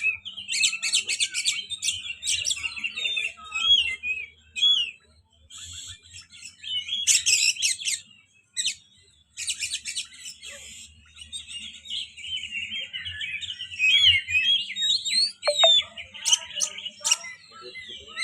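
Oriental magpie-robin (kacer) singing a rapid, varied song of chirps, trills and whistles in bursts, with short pauses about four and eight seconds in.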